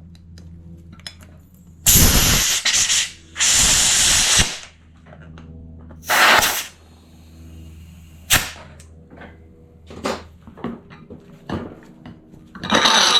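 Compressed air hissing from an air-compressor inflator in short bursts, inflating the inner tube of a snowblower tire: four bursts, the longest about a second, with sharp clicks of handling between them. A low steady hum lies underneath for the first two-thirds.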